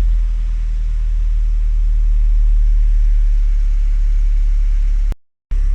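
Ford Transit Connect's 1.5 TDCi four-cylinder diesel engine idling steadily with a deep, even rumble, just after starting now that the snapped battery cable connector has been repaired. The sound cuts out completely for a moment about five seconds in, then the idle resumes.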